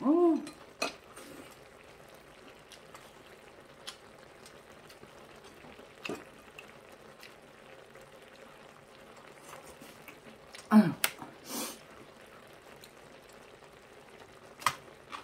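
Faint, steady simmering of braised kimchi and pork in a tray pan at the table, with a few sharp chopstick clicks. About eleven seconds in there is a louder short noise that includes a brief falling vocal sound.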